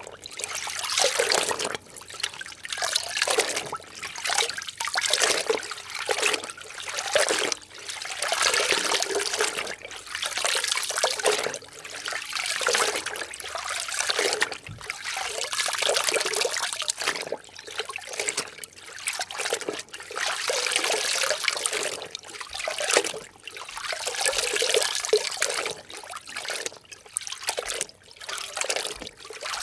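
Water sloshing and splashing in a series of irregular surges, each a second or so long, from something being soaked and moved about in water.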